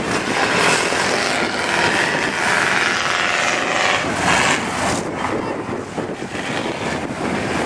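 Engines of lifted four-wheel-drive mud trucks running as they drive across the field, heard as a steady, noisy rush that eases slightly near the end.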